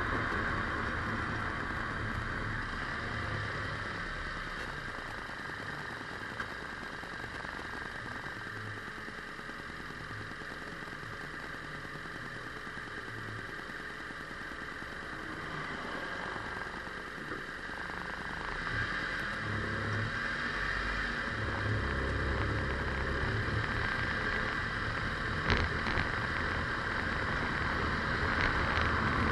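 A vehicle on the move: steady road and engine noise with a low rumble that swells and fades, and a couple of short sharp ticks near the end.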